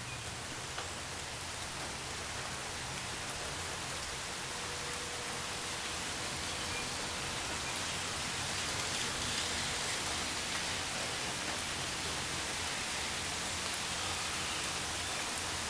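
Steady rain falling, an even hiss, with a few single drops ticking now and then.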